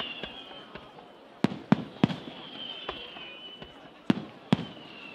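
Aerial firework shells bursting with sharp bangs: three in quick succession about a second and a half in, then two more near the end. Between the bangs comes a high thin whistle that falls slowly in pitch.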